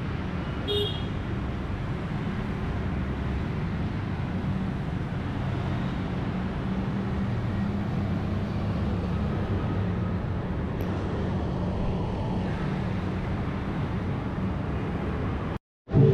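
Steady road traffic: a low rumble of passing vehicles. A short high-pitched beep comes about a second in, and the sound cuts off suddenly just before the end.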